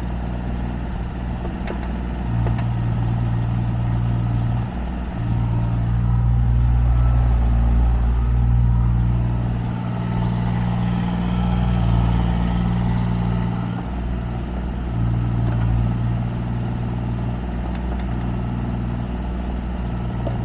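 Diesel engine of a 2014 JCB 8030 ZTS 3-tonne mini excavator running steadily, its note stepping up and down in level every few seconds. A couple of faint clicks come about two seconds in.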